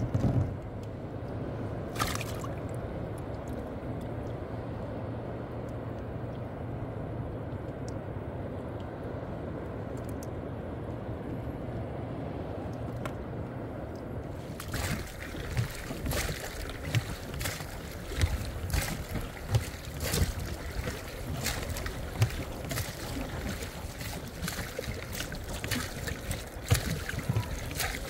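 Steady low rumble for about the first half, then water sloshing and splashing with wind on the microphone, broken by many short sharp knocks.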